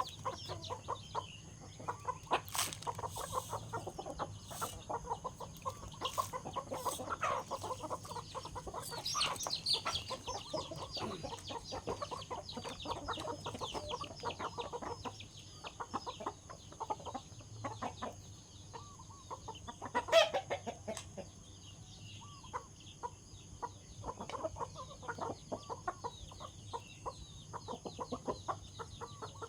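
Chickens clucking and squabbling as they feed, over a constant patter of quick pecking taps. About twenty seconds in, one bird gives a single louder squawk.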